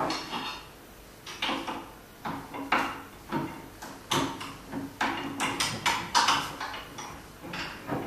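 Metal parts knocking, clicking and sliding as a bearing and ball screw are worked into place on the aluminium rails of a CNC router table. It comes as a string of irregular knocks and short scrapes, busiest in the middle.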